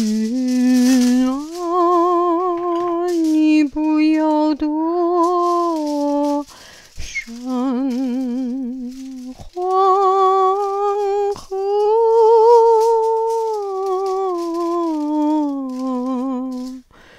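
A woman humming a slow melody without words, long held notes with a wavering vibrato, in phrases of a few seconds with short breaks between them.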